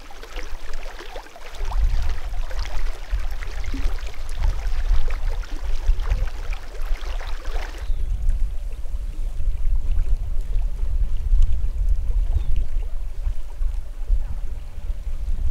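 Wind buffeting the microphone: a low rumble that rises and falls in gusts. For the first half a brighter crackling hiss lies over it, and this stops abruptly about halfway through.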